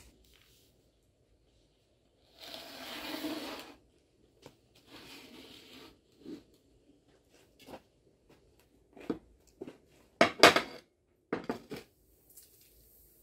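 Metal cookware being moved about on a cast-iron stove top: an aluminium teapot shifted aside and a frying pan set down. Two scraping slides about a second long are followed by a run of sharp clanks and knocks, loudest about ten seconds in.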